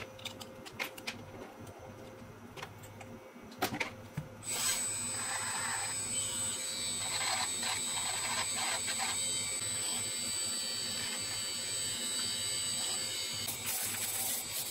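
Worx cordless rotary tool: small clicks of a bit being changed, then the tool switching on about four seconds in and running with a steady high whine. The spinning bit grinds against a small 3D-printed plastic figure in rough patches.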